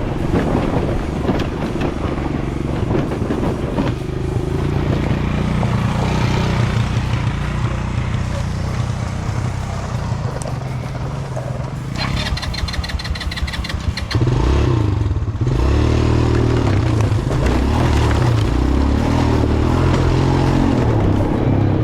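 ATV engine running under load on a trail ride, its pitch shifting as the throttle changes. A short burst of fast, regular clatter comes about halfway through, and the engine is louder from just after that.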